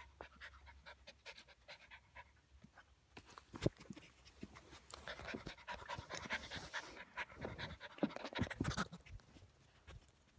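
Golden retriever puppy panting close to the microphone, with scattered sharp clicks and knocks; the loudest knock comes about three and a half seconds in, and the panting is heaviest in the second half.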